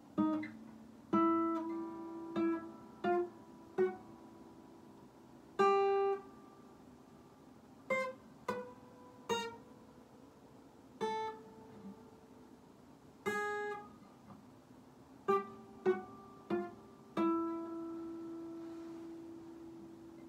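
Acoustic guitar played slowly and haltingly by a beginner: single chords strummed or plucked one at a time with pauses between them, each left to ring. One chord about two-thirds through rings out longer than the rest.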